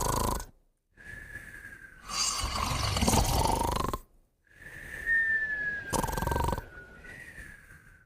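A sleeping puppy and another sleeper snoring together: a thin whistle on the breath that falls slightly in pitch, followed by a loud rattling snore. The pair of sounds comes round about every four seconds, twice in full, with the whistle starting a third time near the end.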